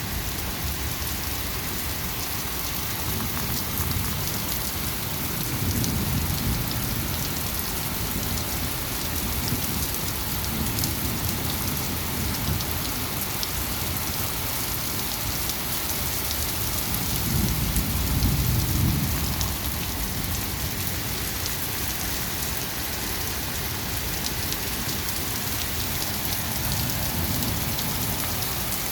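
Heavy rain pouring steadily during a thunderstorm, with low rolls of thunder about six seconds in and again, louder, around eighteen seconds in.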